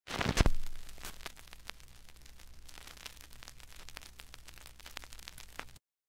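Record-player stylus dropped onto a spinning vinyl record: a loud thump about half a second in, then steady surface crackle and hiss with scattered pops over a low hum, cutting off suddenly near the end.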